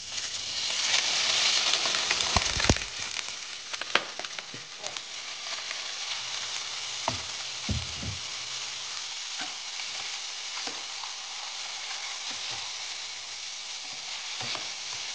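Diced raw pork landing in a hot stainless steel frying pan and sizzling, loudest for the first few seconds and then settling to a steady sizzle. A spatula knocks and scrapes against the pan now and then as the pork is stirred.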